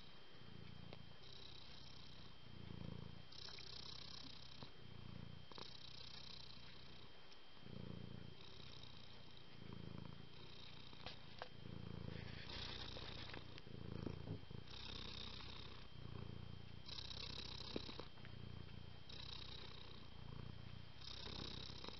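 A tabby cat purring softly, the purr swelling and easing in a slow regular rhythm of about two to three seconds as it breathes in and out.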